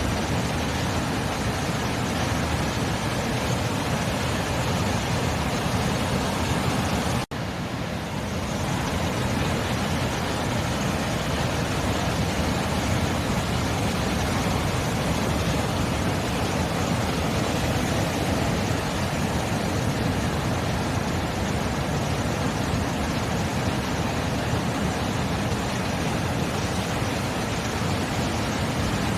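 Sea surf: a steady, continuous wash of waves with no distinct breaks, with a momentary dip in level about seven seconds in.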